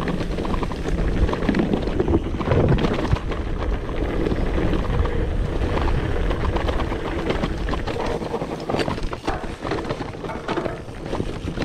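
Mountain bike running down a dirt downhill trail: wind rushing over the microphone, with the knocks and rattles of tyres and frame over rough ground.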